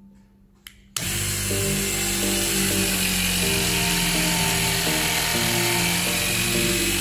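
A click, then about a second in a battery-powered hydraulic cutting tool's electric motor and pump start abruptly and run steadily with a high whine, driving the cutting head.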